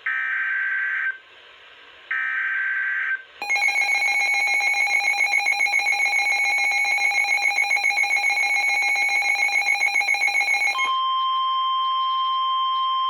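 Emergency Alert System SAME data bursts: two short, screechy two-tone modem bursts about a second apart, closing the previous warning. About three and a half seconds in, a loud pulsing alarm tone starts and runs for about seven seconds, then gives way to a steady single-pitch alert tone near 1 kHz, the NOAA Weather Radio 1050 Hz warning alarm.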